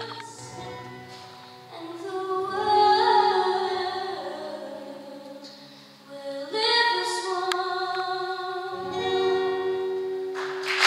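A girl's voice singing a slow song over a sustained accompaniment, in long phrases with held notes. Applause breaks out right at the end.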